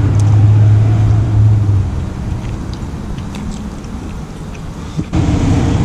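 A motor vehicle running close by: a steady low engine hum for the first couple of seconds, easing into fainter traffic noise. The sound steps up abruptly near the end.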